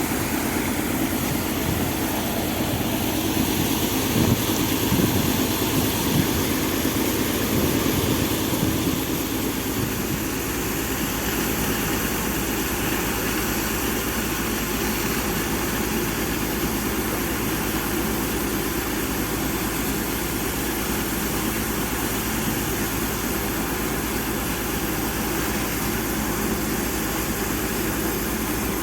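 Engine of a sand pump running steadily under load, with some irregular low thumps in roughly the first nine seconds.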